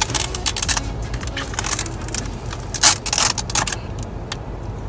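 Irregular plastic clicks and crackles from a clip-on LED vanity mirror being handled and clipped onto a car's sun visor, with one sharper click about three seconds in.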